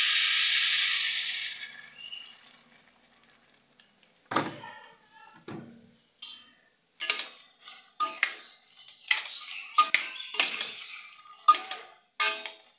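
Water pouring into a steel pot of chickpeas stops within the first two seconds. After a short pause a metal ladle stirs the pot, clinking and scraping against the steel about a dozen times with short ringing tones.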